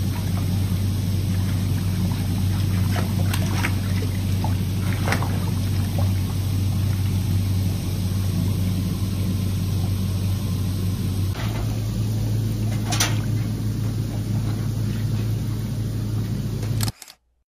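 Hot tub jets churning the water: a steady rush of bubbling water over a low pump hum, with a few small splashes. The sound changes slightly about two-thirds of the way through and cuts off suddenly near the end.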